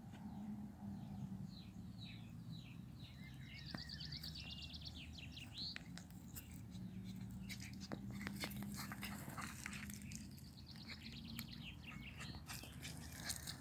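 Small birds chirping in quick repeated calls through the first half, faint; in the second half scattered clicks and rustling take over, over a steady low hum.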